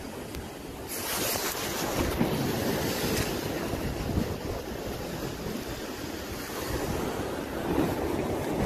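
Wind blowing across the phone's microphone, with sea waves washing against the breakwater's concrete tetrapods; a louder gust about a second in.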